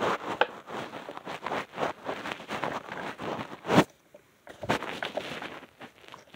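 A plastic toy being handled and tapped: a quick run of clicks, knocks and rustling, with one sharp knock nearly four seconds in.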